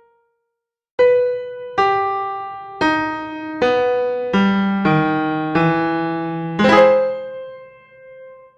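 Keyboard music in a piano-like tone. After about a second of silence come eight struck notes and chords, each dying away, and the last one rings out and fades near the end.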